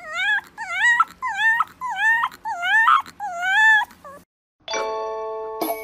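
Fluffy white puppy whining and yipping with its head raised, a quick run of short rising-and-falling high calls at about two a second. The calls stop about four seconds in, and after a brief silence a doorbell-like chime of several ringing notes sounds near the end.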